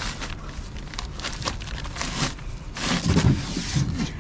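A paper bag of concrete mix scraping and rustling across a plastic wheelbarrow tray as it is gripped and hauled out, with a louder scrape about three seconds in.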